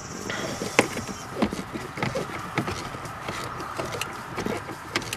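Sparse, irregular light clicks and taps of a hand tool tightening an 8 mm screw into the plastic heater box housing.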